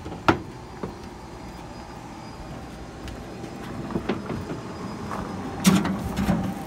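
Wheelbarrow with a metal tray being pushed over gravel: a steady rolling noise from the wheel, with knocks and rattles from the tray and frame, the loudest two near the end.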